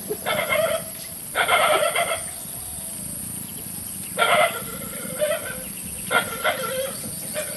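Frogs croaking: about half a dozen short calls, each under a second, coming in irregular bunches over a steady high hiss.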